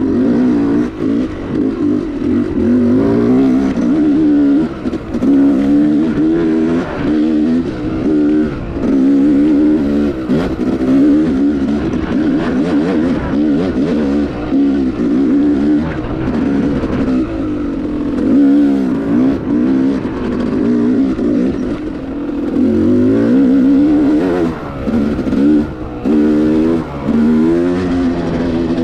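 Yamaha YZ250X two-stroke dirt bike engine revving continuously while being ridden. Its pitch rises and falls constantly with the throttle, with a few brief drops in loudness.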